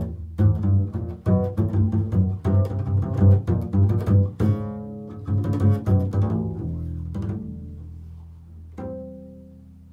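Upright double bass played pizzicato: a quick run of plucked notes for about six seconds, then the notes are left to ring and fade, with one last plucked note about nine seconds in dying away.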